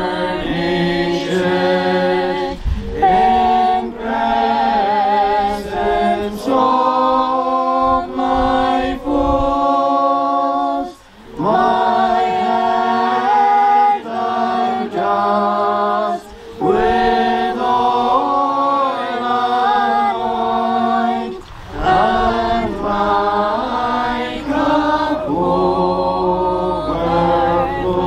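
A congregation singing a hymn unaccompanied: slow, long-held notes in phrases, with short breaks between lines.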